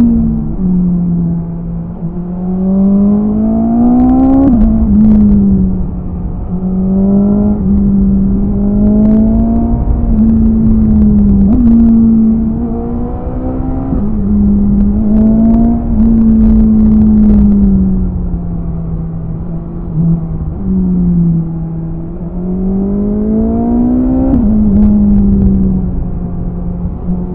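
BMW S1000RR inline-four engine under way, its pitch repeatedly rising under throttle and falling off as the rider accelerates and slows through the bends. There are sharp drops in pitch at gear changes, notably about four seconds in and again near the end.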